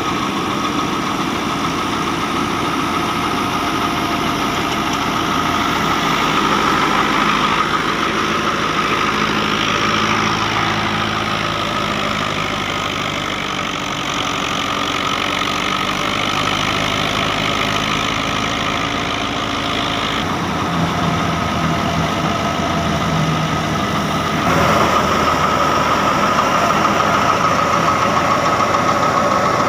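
Dabang 85 tractor's diesel engine running steadily under load, driving a wheat thresher through its PTO shaft, with the thresher's drum and belts whirring along with a steady whine. The sound steps up louder near the end.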